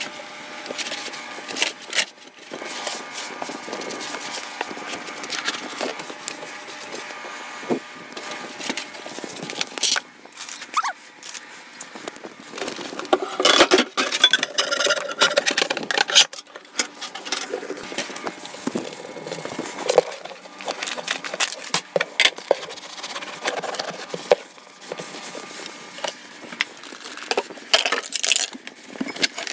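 Kitchen clean-up noises: irregular clatters, knocks and scrapes of objects being moved and set down on a counter and stovetop while surfaces are wiped, with a busier patch of rattling about halfway through.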